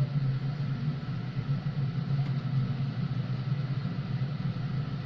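Domestic cat growling low and steadily in a face-off with another cat: a warning threat before a fight.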